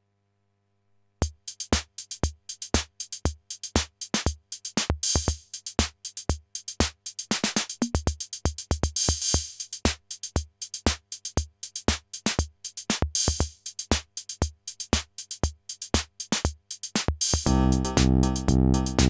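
Casio Casiotone 610 keyboard's built-in rhythm section playing a preset electronic drum pattern of short clicky hits with hissing cymbal-like strokes, starting about a second in. Near the end, sustained keyboard chords join the beat.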